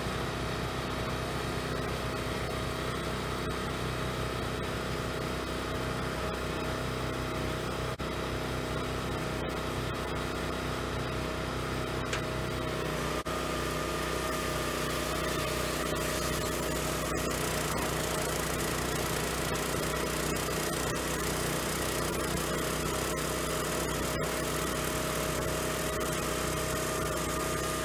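Engine of a small firewood processor running steadily. Its tone changes slightly about halfway through, as a higher steady tone joins in.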